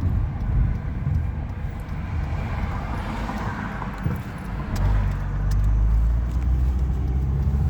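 Low engine rumble of a heavy vehicle, growing louder and steadier about five seconds in.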